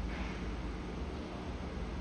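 Steady subway station platform background noise: a low rumble under an even hiss, with a brief, slightly brighter hiss just after the start.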